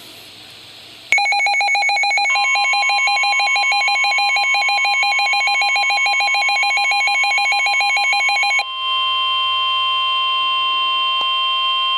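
Emergency alert tones announcing a flash flood warning. About a second in, a loud electronic alarm starts warbling rapidly between two pitches. A moment later the steady NOAA Weather Radio 1050 Hz warning alarm tone joins it. The warble cuts off near the end and the steady tone carries on alone.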